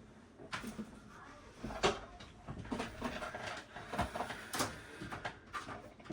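Hands working on a computer being taken apart: irregular light clicks, knocks and rustling of parts being handled, the sharpest knocks about two and four seconds in.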